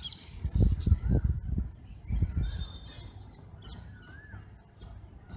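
Birds calling: a short rising-and-falling whistle repeated every second or two, with higher chirps over it. A run of low thumps and rumbles, the loudest sound, comes in the first two or three seconds.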